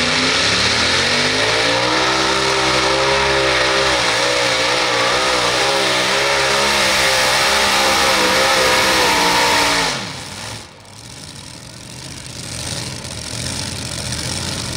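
Modified pulling tractor's supercharged Chrysler Hemi engines at full throttle under load: the revs climb over the first couple of seconds, then run high and waver up and down as the tractor pulls the sled. About ten seconds in, the throttle is closed at the end of the pull. The revs fall away sharply and the engine drops to a much quieter idle.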